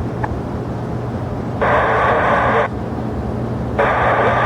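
Two short bursts of air traffic control radio static, each about a second long, heard as the frequency is keyed with no voice. Under them runs a steady low rumble of airport aircraft noise.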